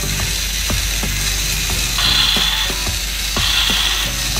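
Battery motor and plastic gearbox of a motorized Zoids Saber Tiger model running its walking mechanism, a rapid regular ratcheting click of several clicks a second. A higher whir swells and fades about every second and a half as the leg joints cycle.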